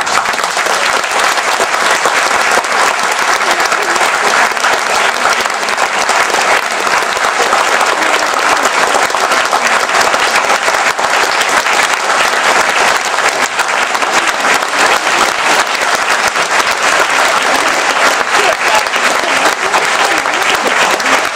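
Large audience applauding: dense, steady clapping that keeps up at an even level without a break.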